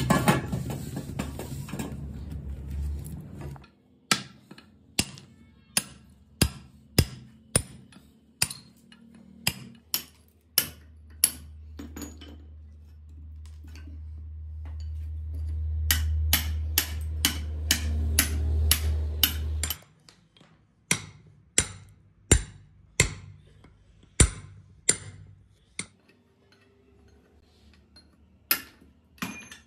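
Steel hammer striking a punch on an old drum-brake shoe, knocking out the rivets of the worn lining: sharp metallic strikes, roughly one to two a second, with short pauses. A low hum builds underneath and stops suddenly about two-thirds of the way through.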